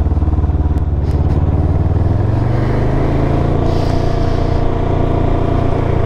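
2019 Can-Am Ryker 600's two-cylinder Rotax engine and exhaust running under way, the pitch rising about two seconds in and then holding steady. The exhaust sounds normal, its leaking header gasket just replaced.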